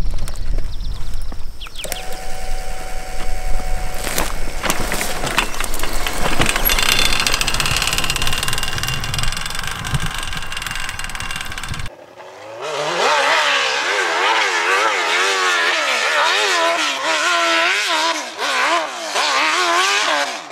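Custom Suzuki RM-Z1000 hill-climb dirt bike: first running close by with a heavy low rumble, then, after a sudden cut about twelve seconds in, heard from further off revving hard up a steep climb, its pitch surging up and down again and again as the throttle is worked.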